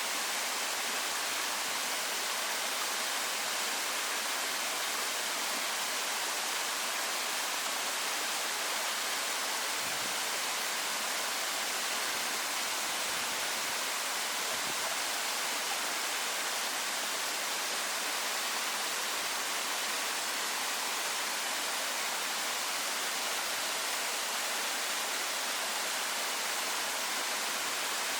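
Waterfall: water falling and splashing in a steady, even rush that leans to the high end, without a break.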